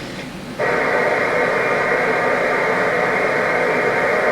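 A loud, steady buzzing sound starts about half a second in and turns into a clear chord of steady tones near the end, confined to the middle pitches as if through a small speaker.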